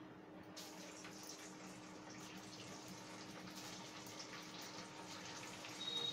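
Faint, steady sizzle of kofta balls deep-frying in hot oil in a kadhai.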